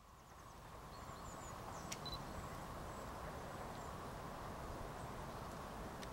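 Outdoor ambience fading in over the first second: a steady low rush with a few faint high bird chirps, and a single click about two seconds in.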